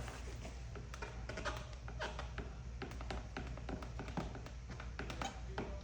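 Light, irregular taps and clicks, several a second, of hands working at a film-wrapped car mirror.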